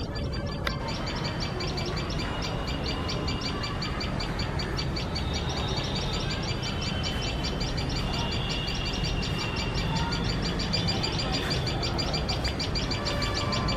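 Tailorbirds giving shrill alarm calls, a fast unbroken run of short high notes, at a cat sitting close to their nest.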